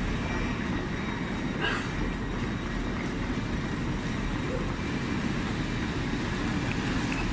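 Steady low rumble of railway station ambience on a platform, with a brief snatch of a voice about two seconds in.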